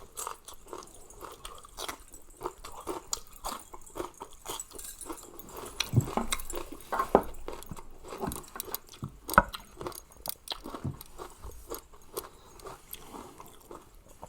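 A person chewing and biting food close to the microphone, with irregular small clicks, smacks and soft crunches, as in a mukbang.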